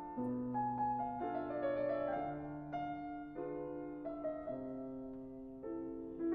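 Slow piano music: sustained notes and chords, changing about once a second.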